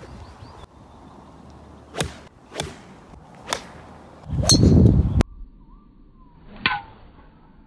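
Golf clubs striking balls off the tee: five sharp cracks of club on ball. The first four come about a second apart, and the last follows near the end after a pause. The fourth crack falls inside a second-long burst of low rumbling noise, the loudest part, which cuts off suddenly.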